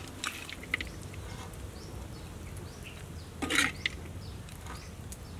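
A metal spatula scrapes and clinks against a wok of stir-fried chicken and eggplant, with a few sharp clicks early and one louder scrape about three and a half seconds in. Small birds chirp faintly throughout.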